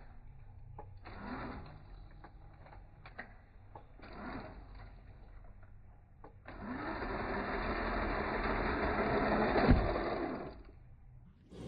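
A few scattered clicks, then a small motor whirring steadily for about four seconds, with a thump near the end of the run.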